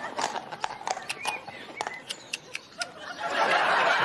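Studio audience laughter dying away, a stretch of scattered light clicks and knocks, then the laughter swelling again about three seconds in.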